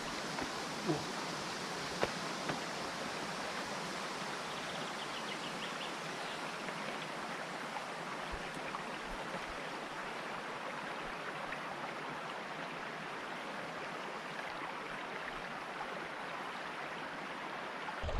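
Steady rush of flowing water, with a few light clicks in the first few seconds.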